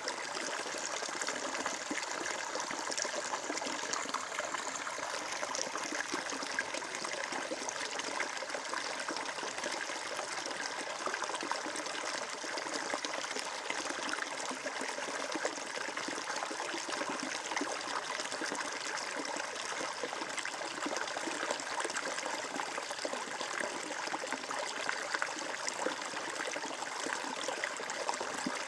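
Flowing water: a steady rush and trickle of a stream running over stones.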